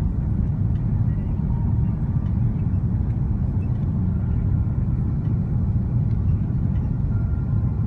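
Cabin noise inside an Airbus A330-300 descending on approach: a steady low rumble of the engines and airflow.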